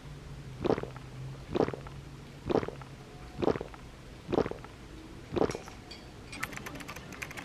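Muffled thuds repeating evenly about once a second, six in all, followed near the end by a rapid run of light clicks.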